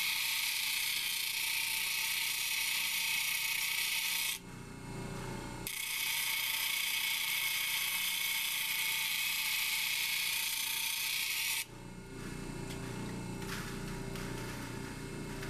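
Labradorite slab being ground on a spinning 100-grit lapidary lap wheel, rough-shaping its edge: a steady, loud gritty hiss. The stone is lifted off briefly about four seconds in and again near the end, leaving the lower hum of the running lap.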